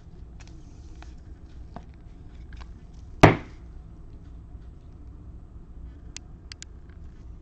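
Light clicks and handling noises of trading cards being sorted on a table, with one sharp knock about three seconds in and a few small ticks near the end.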